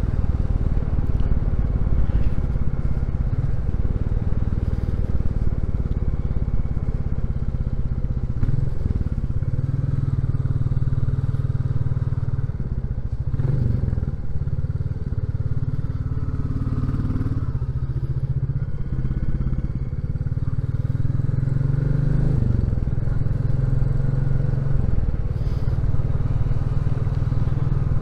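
Royal Enfield Classic 350's single-cylinder engine and exhaust running at road speed, the low note shifting in pitch a few times as the bike speeds up and slows.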